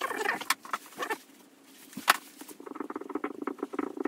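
Marker pen squeaking on a whiteboard while text is written: a rapid run of short squeaks, densest near the end, with a sharp click about two seconds in.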